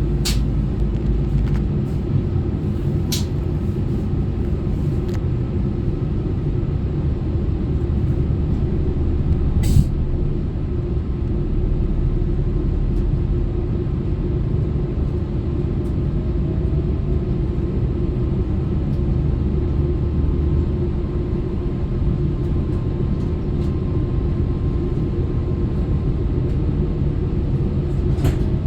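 Class 810 Aurora bi-mode train running on its diesel engines as it pulls away: a steady low engine drone. A few sharp clicks come through, the loudest about ten seconds in.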